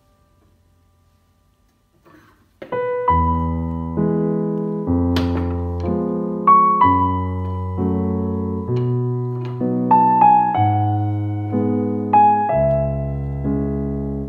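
Background piano music begins a couple of seconds in after near silence. It is a slow, gentle melody with a new note about once a second over sustained low bass notes.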